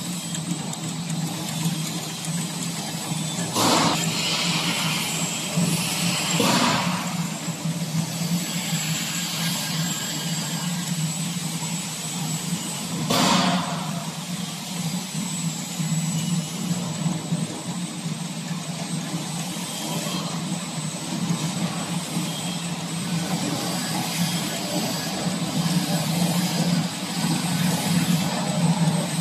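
A 76 mm tube chain conveyor running with a steady mechanical hum and a thin high whine, as its disc chain is drawn through the steel tubes and round the corner sprocket wheels. Three sharp knocks stand out, about 4, 7 and 13 seconds in.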